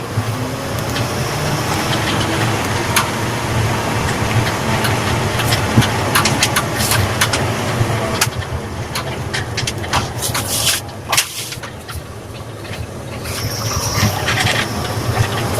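Pickup truck engine running with a turbo whistler fitted to the exhaust, with scattered clicks. The level dips about eleven seconds in, then rises again while a thin high whistle sounds near the end.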